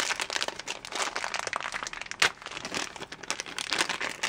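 Clear plastic bag crinkling as hands handle the bagged micro USB cable, in irregular rustles with one sharper crackle about two seconds in.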